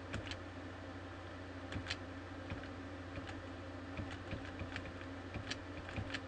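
Computer keyboard keys pressed one at a time, a scattering of separate clicks at irregular spacing, as a terminal pager is stepped down through a text file. A steady low hum runs underneath.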